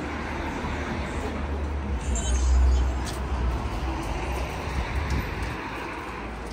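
City street ambience: steady road traffic noise, with a low rumble that swells and is loudest between about two and three seconds in.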